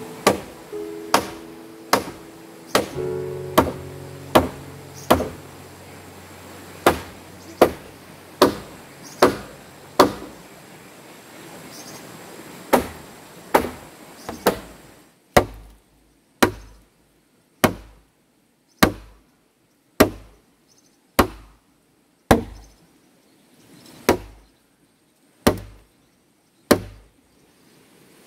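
A tool striking wood in steady repeated blows, about one a second, with two short pauses. Soft music plays under the first few seconds.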